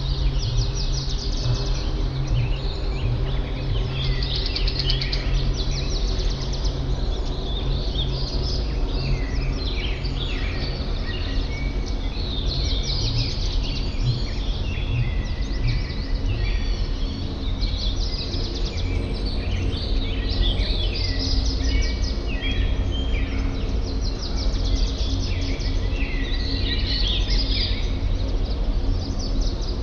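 Many songbirds chirping and trilling at once in a dense, unbroken chorus, over a steady low hum.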